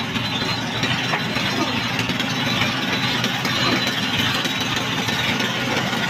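A fishing boat's engine running steadily, with water splashing and churning as a brail net scoops tuna from the crowded seine net.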